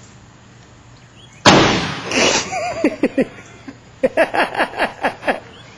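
A car airbag module set off on the ground, going off with one sharp, loud bang about a second and a half in.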